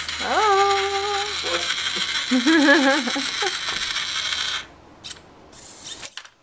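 Small geared motors of an Arduino-driven painting robot whirring. They cut off about four and a half seconds in, then run again in two short spurts.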